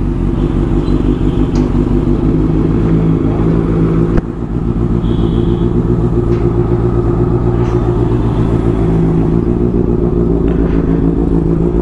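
Honda CBR650F's inline-four engine idling steadily through an aftermarket exhaust, warming up just after a cold start. A brief click about four seconds in.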